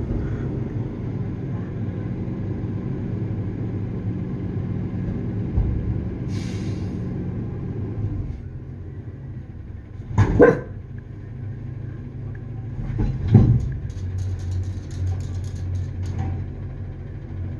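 A vehicle engine runs with a steady low rumble, easing off after about eight seconds; a dog barks twice, about ten and thirteen seconds in.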